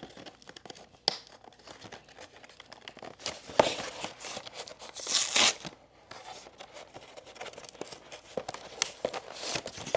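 Cardboard Pokémon TCG premium collection box being handled and opened: scattered rustling and a few sharp clicks. About five seconds in comes a louder tearing sound, about half a second long, as the glued flap is pulled open.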